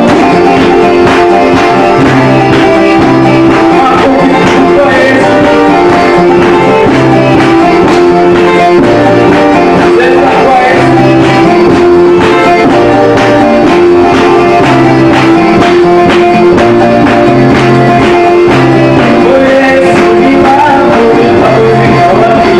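Church worship music: singing over band instruments with a steady, repeating bass line.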